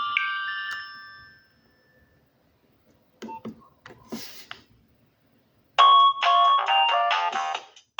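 Nokia 6030 ringtone melody from the phone's loudspeaker trailing off in the first second or so, then a few short clicks, and a new ringtone melody starting abruptly about six seconds in.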